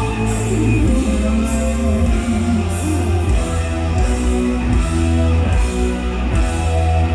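Rock band playing: electric guitar over bass notes and drums with cymbals.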